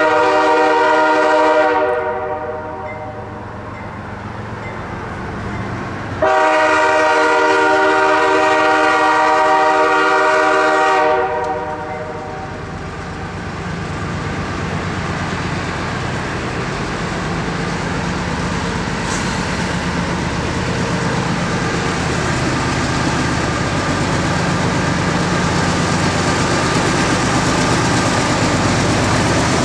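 Approaching CSX freight train's diesel locomotive sounding its air horn twice, a blast of about two seconds and then a long one of about five seconds, each a multi-note chord. After the horn, the locomotives' diesel engines and the rumble of wheels on rail grow steadily louder as the train comes nearer.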